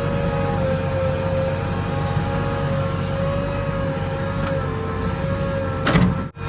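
JCB 3DX backhoe loader running with a low engine drone and a steady high whine that wavers slightly in pitch. Near the end a brief louder burst is followed by a sudden cut-out.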